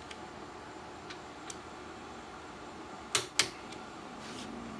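Click-type torque wrench on a rear shock mounting bolt giving two sharp clicks about a quarter second apart, about three seconds in: the wrench breaking over at its set torque.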